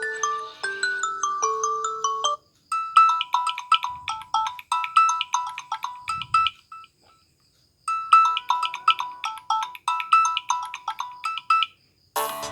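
Samsung Galaxy A20s ringtones: a short melody of chiming notes that ends about two seconds in, then a quick, repeating two-note chime pattern played twice with a pause of about a second between.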